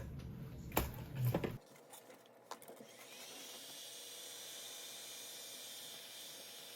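A few light clicks, then from about three seconds in a faint, steady hiss with a thin high tone.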